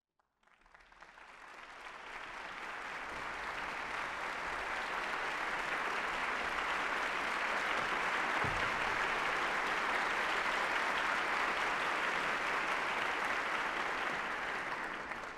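Concert audience applauding, entrance applause as the conductor takes the podium: it fades in, builds to a steady peak and eases off slightly near the end.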